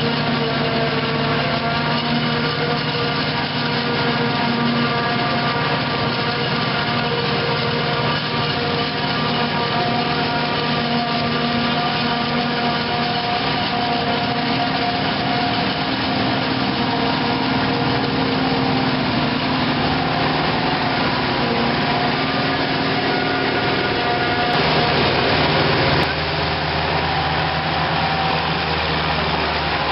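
Diesel engines of farm harvesting machinery running steadily. It turns noisier about 25 seconds in, and the sound changes abruptly a second later.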